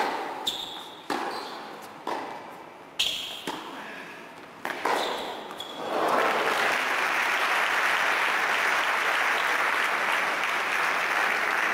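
Tennis rally in an indoor hall: five sharp, echoing strikes of racket on ball over the first five seconds, some with a short high ring from the strings. From about six seconds in, the crowd applauds steadily, marking the end of the point.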